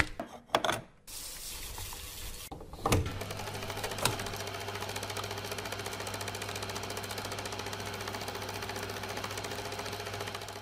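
Clicks and knocks of a film reel being fitted onto a projector spindle, then a knock about three seconds in as a vintage film projector starts and runs with a fast, steady clatter over a low motor hum.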